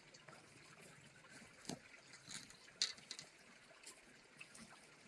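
Faint splashing and trickling water from a hooked trout being played at the surface, with a few sharp splashes, the sharpest nearly three seconds in.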